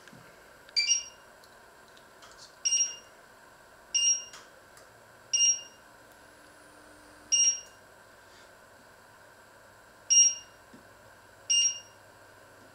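Touch-control glass cooktop beeping seven times at uneven intervals, one short two-tone beep for each press of its touch controls as a hob is switched on and its power level set. A faint steady hum lies underneath.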